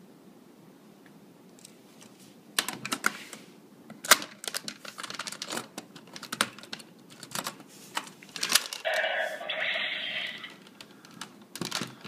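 Plastic clicking and snapping as a Kyoryuger GabuRevolver toy gun is handled and loaded with a Jyudenchi battery, starting about two and a half seconds in. About nine seconds in, the toy's speaker plays a short electronic sound lasting a second or two.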